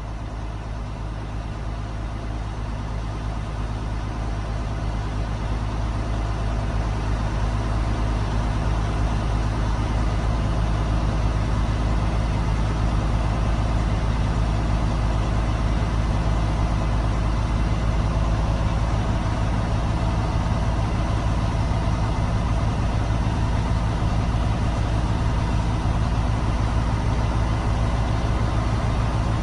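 Truck's diesel engine running steadily in the cab while its air compressor builds the air brake system back up to full pressure. It slowly gets louder over the first ten seconds or so, then holds steady.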